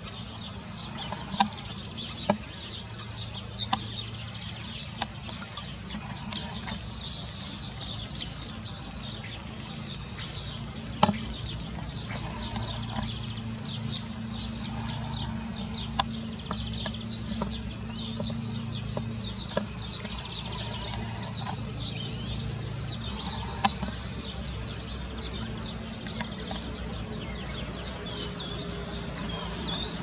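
Many songbirds chirping, with short high calls overlapping densely throughout, over a steady low hum. A few sharp clicks stand out, the loudest near the start, about eleven seconds in and near the end.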